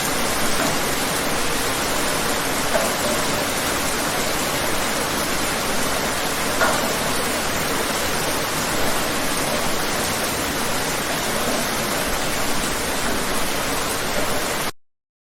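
Steady rain falling outdoors: a dense, even hiss of drops with a few individual drops standing out. It cuts off suddenly near the end.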